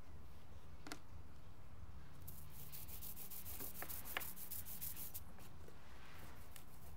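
Scratchy rubbing with a few sharp clicks, from hands working a small tabletop relief printing press and handling the print on its bed, mostly between about two and five seconds in, over a steady low hum.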